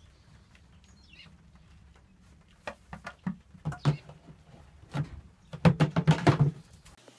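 A baby goat's hooves knocking on plastic buckets and an empty plastic water jug as it clambers over them, in a run of scattered knocks that becomes a quick, loud clatter near the end. A short bird chirp comes about a second in.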